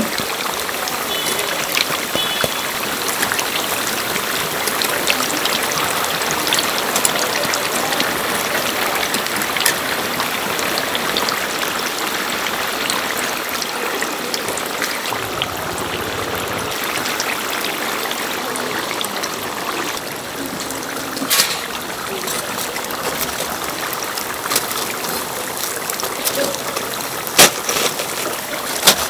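Deep-fryer oil sizzling and bubbling steadily around breaded croquette toast. A few sharp metal clinks from tongs and a wire strainer come late on, the loudest near the end.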